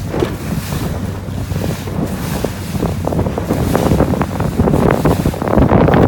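Wind buffeting the microphone over water rushing and splashing along the hull of an Etchells keelboat under sail, the splashing growing busier and louder in the second half.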